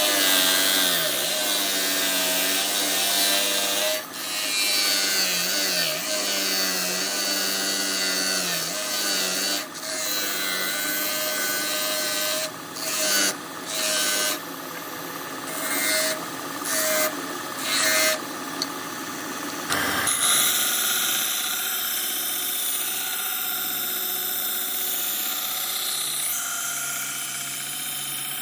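Bandsaw running and cutting wood, the motor note sagging briefly several times as the blade takes load. About two-thirds of the way in the sound changes abruptly to a steadier machine hum.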